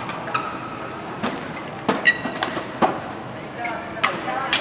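Badminton doubles rally: rackets strike the shuttlecock about six times, sharp cracks coming every half second to a second. There is a short high squeak about two seconds in, over crowd chatter.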